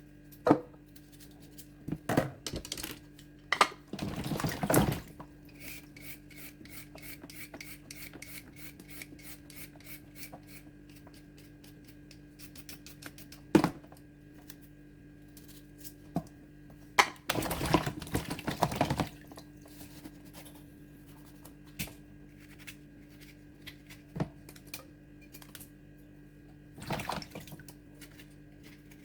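Potatoes being peeled and handled: scattered clicks and knocks of utensils against a bowl and board, with two longer bursts of rustling noise about four seconds in and again at about seventeen seconds, over a steady low hum.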